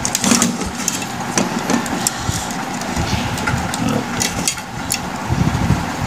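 Hands handling a plastic switch-and-socket board and pulling wires through it: scattered clicks, knocks and rustles, over a low rumble.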